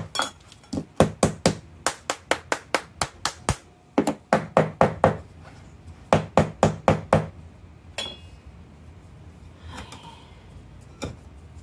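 Metal scoop rapidly tapping a plastic bath bomb mold, about four knocks a second in short runs, to pack the mix together and loosen it from the sides of the mold. The tapping stops about seven seconds in, and two single knocks follow.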